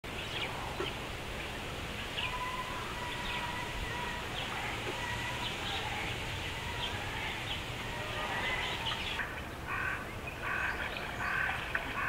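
Wild birds chirping in short, high notes over a steady outdoor background rumble, with a run of louder, harsher bird calls in the last couple of seconds.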